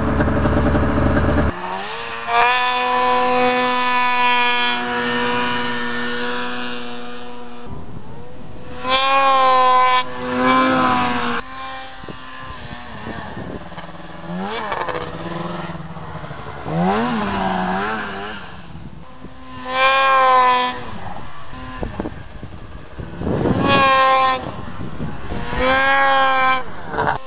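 Snowmobile engines revving hard as the sleds plough through deep powder, the engine note rising and falling with the throttle. Several sleds swell loud in turn as they pass close.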